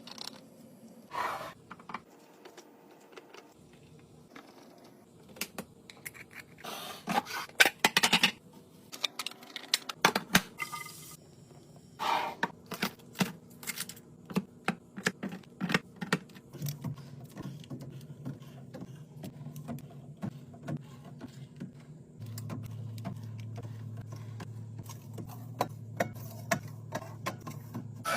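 Irregular clicks and knocks of plastic food containers, lids and kitchen items being handled and set down, with a low steady hum coming in about halfway through.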